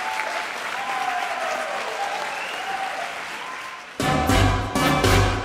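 Audience applauding, until about four seconds in, when quickstep ballroom music cuts in abruptly with a strong, driving beat.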